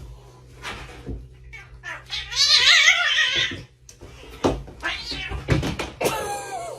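A cat's long, wavering yowl about two seconds in, with scattered knocks and thumps around it and a shorter falling cry near the end.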